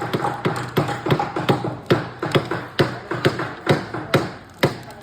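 Small hammers tapping on wooden kit pieces, sharp knocks at an uneven rate of roughly two a second.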